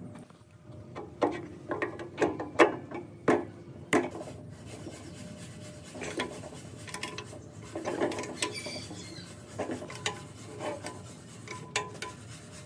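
Hand tools on a small V-twin air compressor pump being reassembled: a wrench clinking and scraping on the cylinder head bolts and metal parts as the heads are fitted and tightened. Irregular sharp metallic taps, the loudest cluster between about one and four seconds in, then fewer and softer ones.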